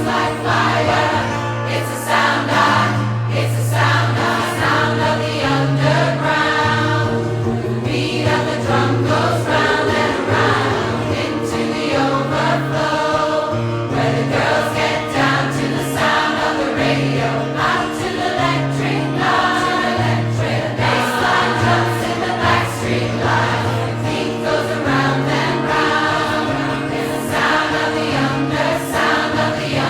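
A large choir singing a pop song in several parts, over sustained low notes that change pitch every second or so.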